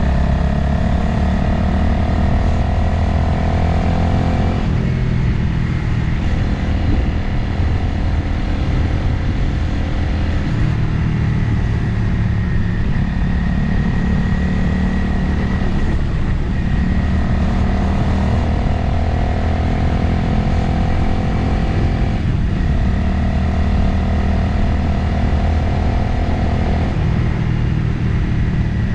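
Motorcycle engine running under load on the road, its pitch slowly climbing as it accelerates and then dropping sharply at gear changes, about five seconds in and twice more in the last seven seconds, with steady wind noise underneath.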